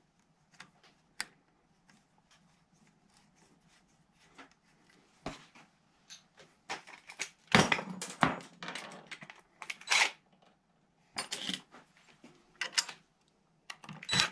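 Small metal hardware clinking and clattering as bolts and spring washers are handled and fitted. Light scattered ticks at first, then a louder run of clatter from about halfway through.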